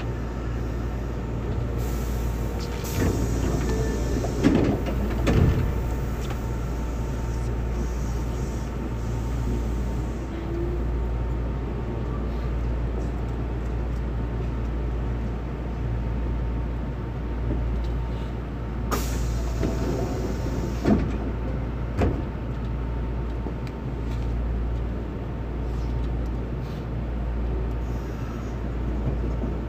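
Inside an Osaka Metro 66 series subway car standing still: the steady low hum of its onboard equipment, with no traction-motor whine. A few knocks come early on and again about two-thirds through, and there is a brief hiss near the two-thirds mark.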